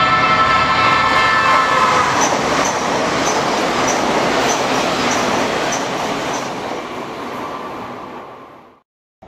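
A blue JR Kyushu limited-express electric train passing through the station at speed. A held pitched tone dips slightly about two seconds in, then gives way to a steady rush of wheel and air noise with a sharp click about twice a second. The noise fades as the train leaves, and the sound cuts off abruptly near the end.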